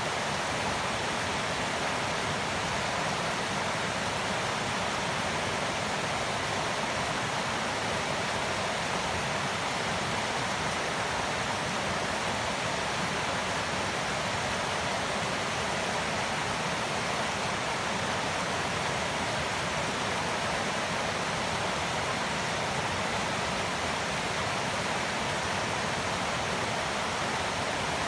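Running water: a steady, even rush that does not change.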